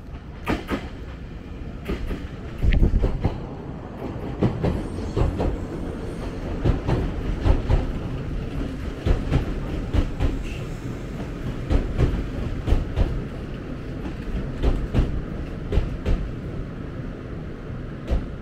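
Nankai Koya Line electric commuter train running alongside the platform, its wheels clacking repeatedly over rail joints and points over a steady low rumble.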